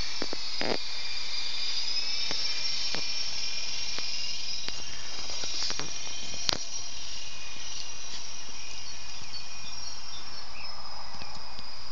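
Radio-controlled model helicopter in flight, its motor and rotors giving a steady high-pitched whine that wavers slightly in pitch as it manoeuvres. A single sharp click about six and a half seconds in.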